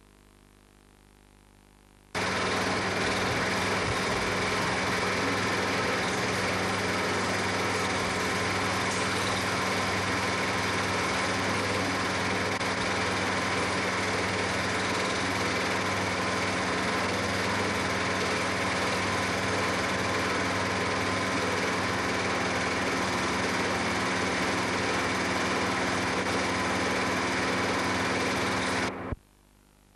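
Film projector running, a steady mechanical whirr with a constant hum. It starts abruptly about two seconds in and cuts off just before the end.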